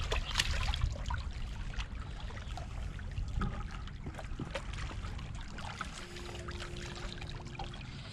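Small splashes and trickling of shallow water against shoreline rocks as a hand grips and lifts a small striped bass, with a low steady rumble underneath. A faint steady hum comes in near the end.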